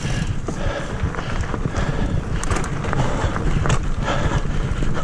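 Mountain bike ridden fast over a dirt singletrack: a constant rumble of tyres on the trail, with short clicks and rattles from the bike over bumps and wind on the microphone.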